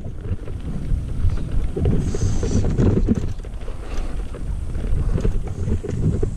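Wind buffeting the microphone of a camera on a moving mountain bike, with tyres rolling on a dirt trail and the bike rattling in short knocks over bumps.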